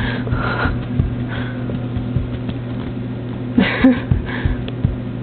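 Dog snuffling with its face in a cushion: short breathy sniffs in a few clusters, with soft irregular thumps, over a steady low electrical hum.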